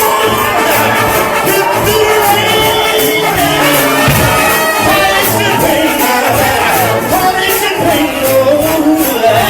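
Live gospel band music with a steady beat of bass and drums, and a melodic line bending over it.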